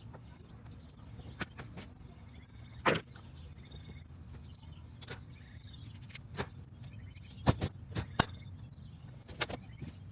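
Irregular sharp knocks and taps, about ten in all: the loudest and longest comes about three seconds in, and a quick run of three or four follows around seven and a half to eight seconds. A low steady rumble lies underneath.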